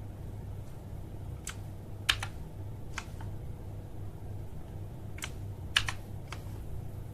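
Individual keys on a One Up mechanical keyboard pressed one at a time: scattered sharp clicks, about eight to ten in all with a couple in quick pairs, over a low steady hum.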